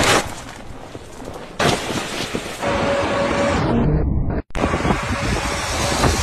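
Outdoor noise with road traffic running, broken by abrupt cuts about a second and a half in and again near the middle.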